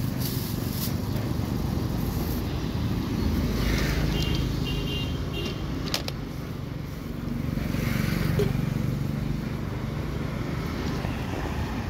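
Steady rumble of street traffic, swelling twice as vehicles pass, with one sharp click midway.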